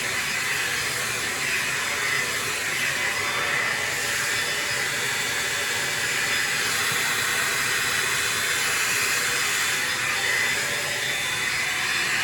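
Farery hot-air blow-dryer brush running steadily, giving a constant loud rush of air as it is worked through the hair.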